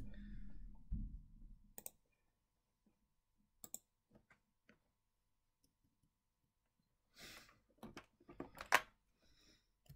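Faint scattered clicks and light handling noises, with a low hum that fades out in the first two seconds. A denser cluster of rustling and sharp clicks comes near the end.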